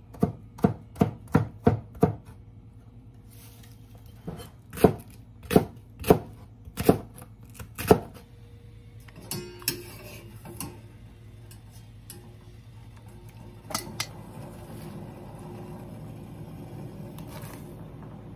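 Kitchen knife slicing zucchini on a plastic cutting board, quick strokes at first, then a few slower, heavier chops that stop about eight seconds in. After that, a few light metal clinks of a mesh strainer against a stainless steel pot, and a faint steady noise near the end.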